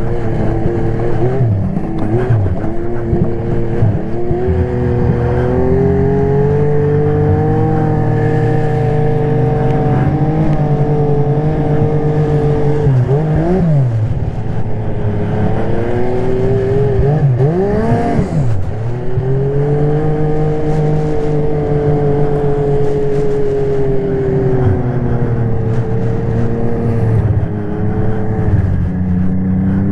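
Snowmobile engine running at steady high revs. About halfway through the revs drop and climb back, and a few seconds later they do so again.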